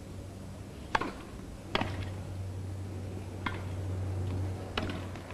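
Tennis ball struck back and forth by rackets in a rally: four sharp pocks at uneven intervals of about a second, over a low steady hum.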